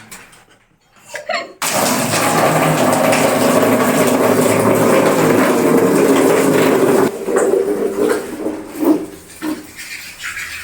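Water running hard from a tap into a bucket for washing clothes: a steady rush that starts suddenly a second or so in and stops abruptly about five seconds later.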